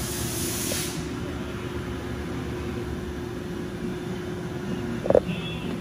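Haas TM-2 toolroom mill's spindle run at its 4000 RPM maximum: a high hiss over a steady machine hum. The hiss cuts off about a second in, leaving the steady hum, and a single thump comes near the end.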